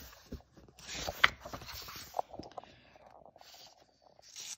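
A page of a picture book being turned: paper rustling with one sharp snap of the page about a second in, and a brief rustle again near the end.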